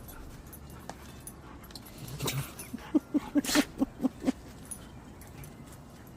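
Siberian huskies play-fighting: a quick run of about eight short, loud vocal sounds, a few a second, lasting about a second and a half, preceded by a brief low scuffle.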